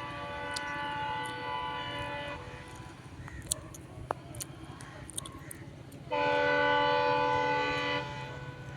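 WDP4D diesel locomotive's horn: a chord blast that ends about two seconds in, then a second, louder blast of about two seconds near the end, over a steady low rumble of the running train.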